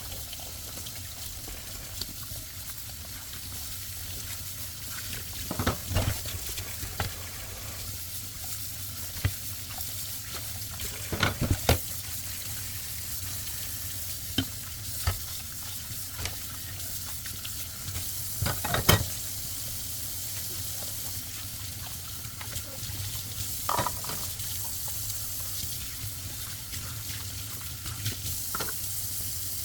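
Washing dishes at a sink: a steady hiss of running water, with dishes and utensils clinking and clattering now and then, the loudest clatters about 12 and 19 seconds in.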